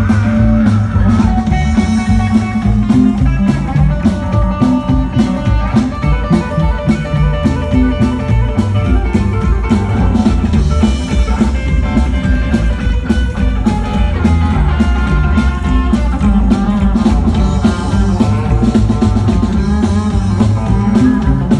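Rockabilly band playing live at full volume, an instrumental passage with no singing: hollow-body electric guitar over upright double bass and drums, driven by a fast, steady beat.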